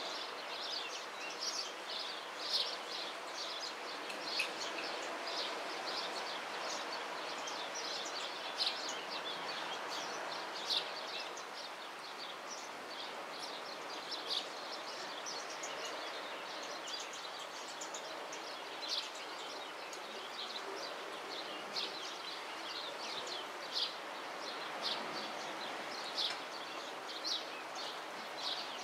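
Small birds chirping in short, repeated calls over a steady outdoor background noise.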